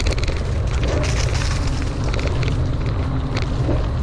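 Mountain bike rolling along a dirt trail covered in dry leaves: tyres crunching over leaves and twigs and the bike rattling in quick clicks, over a steady low rumble of wind and motion on the bike-mounted camera's microphone.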